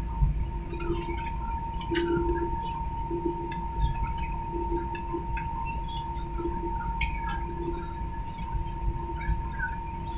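Inside the cabin of a jet airliner taxiing: the engines at idle make a low rumble under a steady high whine. A lower hum swells and fades, and small clicks and rattles come through now and then.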